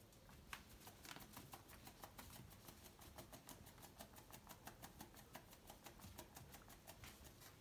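Faint rapid clicking, several small clicks a second, from Bedlington terriers licking and nosing at a cat.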